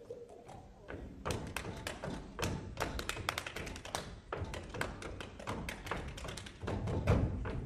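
Body percussion: sharp hand claps and slaps in a quick, uneven rhythm, with heavier foot stamps on the stage floor near the end.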